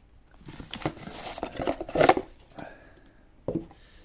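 Cardboard outer sleeve scraping as it slides off a watch box, then a sharp knock about two seconds in as the box is set down on a wooden table, and a lighter knock later.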